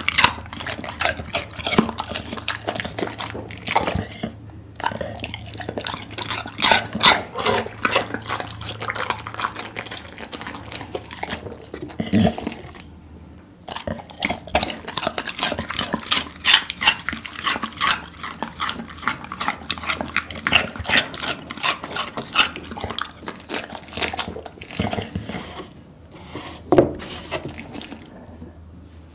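Golden retriever chewing cucumber pieces: a dense, irregular run of wet, crisp crunching and smacking, with short lulls about four and thirteen seconds in and thinning out near the end.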